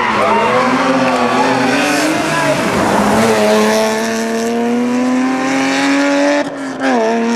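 BMW E30 rally car's engine pulling hard out of a bend, its pitch wavering as the throttle is worked, then climbing steadily through one gear. Near the end the pitch drops sharply at an upshift and starts climbing again.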